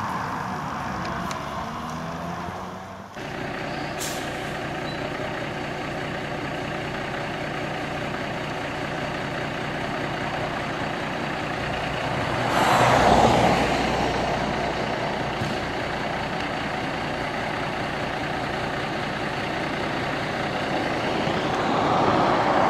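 Diesel semi-truck engine running with a steady drone as the tractor-trailer moves past close by. There is a loud rushing burst about 13 seconds in, and the sound swells again near the end as the container trailer goes by.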